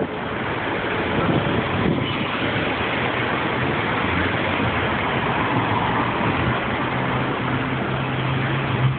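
Street traffic: a steady wash of passing car engines and tyres. In the last two seconds a steady low engine hum comes in as a motor scooter draws close.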